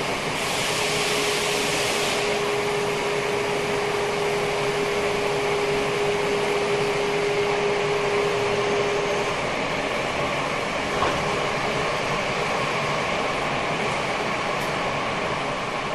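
Tokyo Metro 10000 series subway train running underground, heard from inside the car: a steady rumble and rush of wheels on rail, with a brief hiss near the start. A steady whine from the Mitsubishi IGBT VVVF inverter drive holds one pitch and stops a little past halfway, as traction power is cut.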